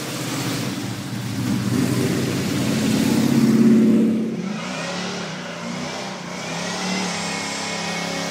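A muscle car's engine revving and accelerating past, growing louder to a peak about three and a half seconds in. The sound then changes abruptly to another car's engine running more steadily and quieter.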